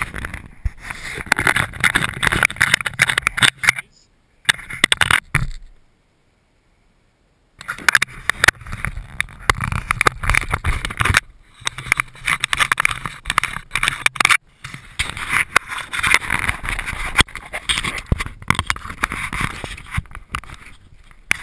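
Handling noise on the plane-mounted GoPro: rubbing and scraping with many sharp clicks and knocks as hands move the model plane, broken twice by sudden silences.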